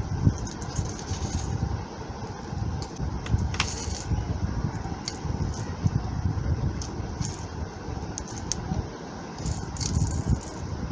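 Scattered small clicks and rattles of laptop parts being handled and pressed into place during reassembly, over a steady low rumble.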